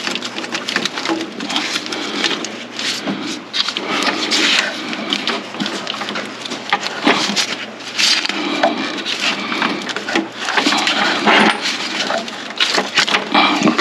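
Irregular knocks, clatter and rustling from hands working engine parts while a new hose is fitted to the intake.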